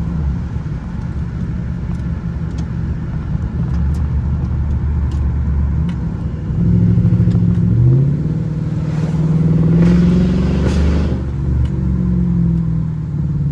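Jaguar XJR's supercharged V8 under way: the engine runs steadily, then about six seconds in the revs climb, drop back at a gear change, and climb again before easing off near the end.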